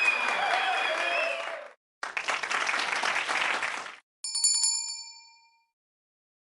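Short bursts of crowd cheering and applause, then a single bright bell ding about four seconds in that rings and fades out over about a second.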